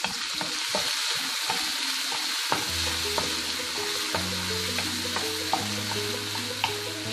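Onion, tomato, green chilli and curry leaves sizzling in hot oil in a non-stick frying pan while a wooden spatula stirs them, with light scraping ticks against the pan. Soft background music comes in about two and a half seconds in.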